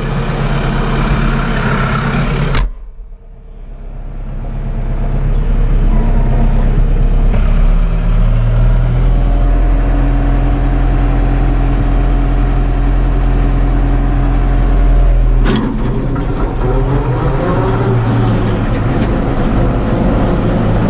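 Case IH 75C tractor's diesel engine running, heard from inside the cab. About three seconds in the sound drops away sharply and builds back up over the next few seconds; a steadier, higher tone runs from about eight to fifteen seconds, ending with a sharp click.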